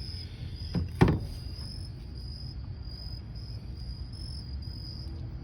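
Crickets chirping steadily in the background, a high pulsing trill, with a single sharp click about a second in.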